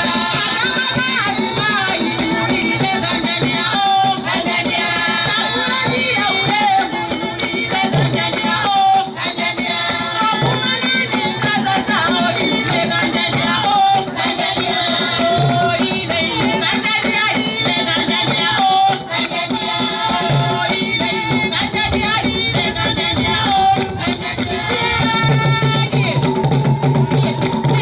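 Malawian traditional song and dance music played live: a chorus of voices singing over a steady beat on a tall hand drum, with hand-clapping.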